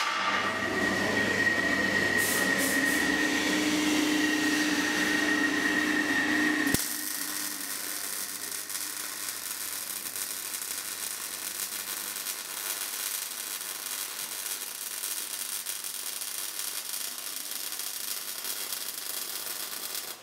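MIG welding arc on steel: an even, steady hiss that takes over abruptly about seven seconds in. Before that comes a louder steady sound with a high whine.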